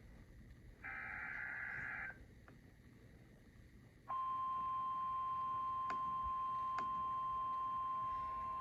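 Emergency Alert System SAME header: a harsh digital data burst about a second in, lasting just over a second, then about four seconds in the steady, single-pitched attention tone begins and holds.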